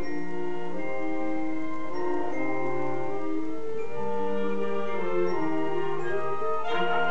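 Live wind band with double bass playing a slow passage of held, sustained chords that change every half second or so, swelling louder near the end.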